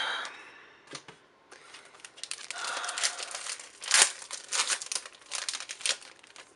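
Foil trading-card booster pack being crinkled and torn open, a dense crackle of wrapper noise with the sharpest rip about four seconds in.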